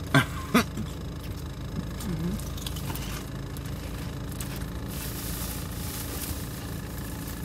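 Steady low hum of a car engine idling, heard inside the cabin. Two short loud voice sounds come just after the start, and a brighter hiss comes in about five seconds in.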